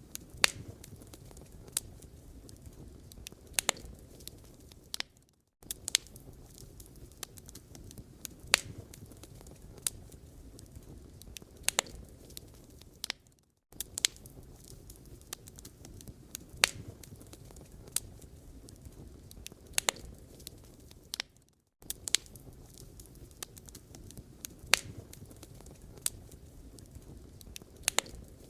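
Wood fire crackling in a fireplace: sharp scattered pops and snaps over a steady low rumble and hiss. The sound fades out and goes silent for a moment about every eight seconds, then resumes, like a short recording looped.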